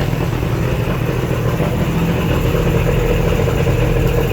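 1972 Mercury 65 hp inline three-cylinder two-stroke outboard idling steadily in reverse gear, running out of the water.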